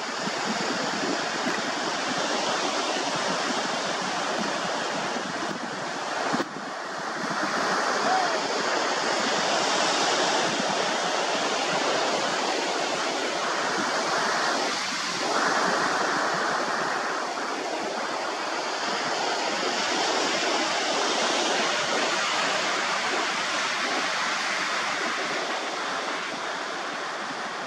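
Sea surf washing onto a beach: a steady rush that swells and eases slowly, with one short click about six seconds in.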